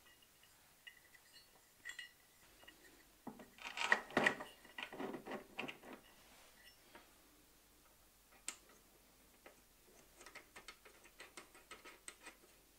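Small metal parts of a bandsaw being handled and fitted by hand: scattered clicks and clinks of bolts and the table's trunnion bracket. There is a louder cluster of knocks and rattles about four seconds in, and a run of light ticks near the end.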